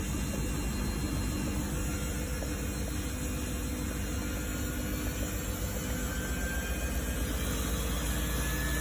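Samsung WF1700WRW front-loading washing machine running, a steady motor hum with a faint whine that rises in pitch over the last few seconds as the drum speeds up.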